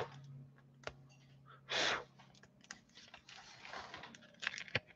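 Light clicks and taps of things being handled on a tabletop, with a short rustle about two seconds in, over a faint low hum.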